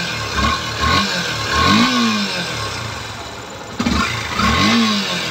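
Yamaha FZ-S V3's single-cylinder 149 cc engine running, freshly reassembled after repair of an engine noise, blipped on the throttle about four times so the revs rise and fall. A brief sharp knock about two-thirds of the way through.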